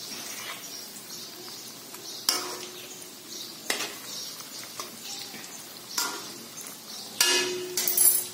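Cabbage manchurian balls deep-frying in a kadhai of oil on low heat, with a steady sizzle. A metal spoon and a wire-mesh skimmer clink against the pan a few times, a second or two apart, and there is a longer scrape near the end.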